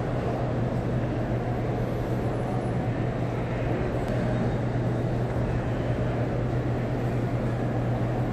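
Steady low hum under an even wash of crowd ambience in a large hall.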